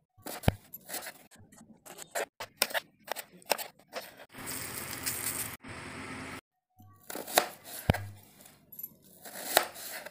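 Kitchen knife slicing through a red onion on a cutting board: a series of sharp cuts and knocks on the board. In the middle there are about two seconds of a steady rough rustle, then the cutting strokes resume.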